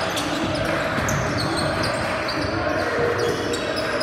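Basketball game in a gym: the ball bouncing on the court and short high sneaker squeaks over a steady background of voices echoing in the hall.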